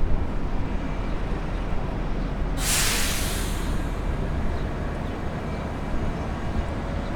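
Steady low city traffic rumble, with a sudden sharp hiss of a bus's air brakes releasing about two and a half seconds in that fades away within about a second.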